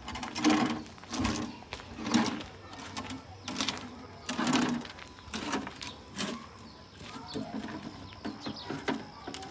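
Birds calling in short repeated bursts, about one a second, coming quicker and softer near the end.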